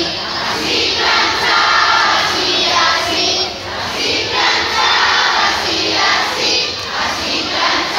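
Circus audience, many voices together, singing and shouting along in repeated phrases.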